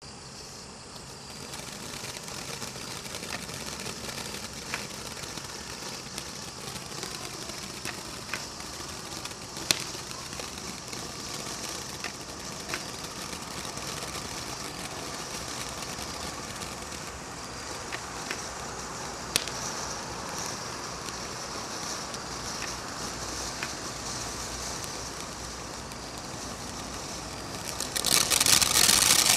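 Black Cat Bellagio Fountain, a ground firework fountain, spraying sparks with a steady hiss broken by scattered crackles and sharp pops. About 28 seconds in it suddenly gets much louder and denser as the fountain steps up to a bigger effect.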